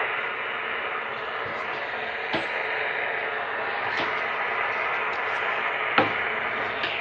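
CB radio static: steady receiver hiss on an open channel from a Cobra 142GTL, with a few sharp clicks, the loudest about six seconds in.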